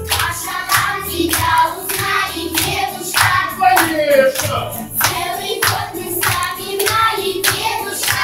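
A group singing a festive song to backing music, with a sharp steady beat about twice a second.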